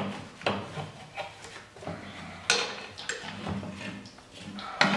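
Polaris Sportsman radiator and fan assembly knocking and scraping against the ATV's frame as it is worked free by hand and lifted out: an irregular clatter with several sharp knocks, the loudest near the end.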